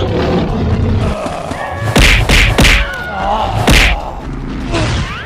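Cartoon fight sound effects: a run of heavy thuds and whacks, the loudest three coming about two, two and a half and nearly four seconds in, over a dense, busy soundtrack.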